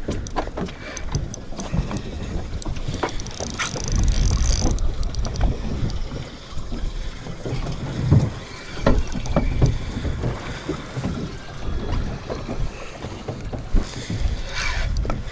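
Wind rumbling on the microphone and choppy sea slapping against a boat's hull, with scattered light clicks and knocks throughout.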